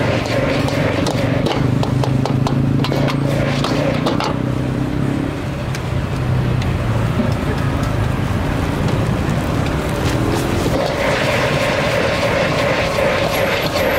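Street traffic: motor vehicle engines running close by, with a steady engine hum for about the first five seconds and scattered clicks and knocks.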